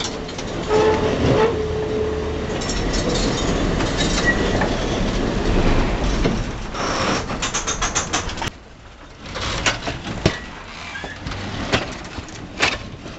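Vintage tram running on its rails, with a steady rumble and rattle and a quick run of clicking about seven seconds in. About eight seconds in the sound drops suddenly to a quieter background broken by scattered clicks and knocks.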